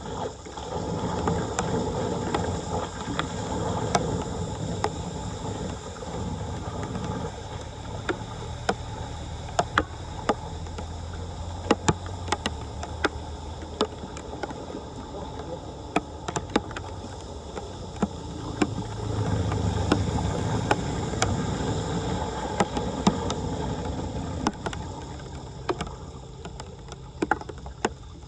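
Floodwater sloshing and rushing, with many sharp clicks and knocks throughout and heavier rumbling surges at the start and again about two-thirds of the way in.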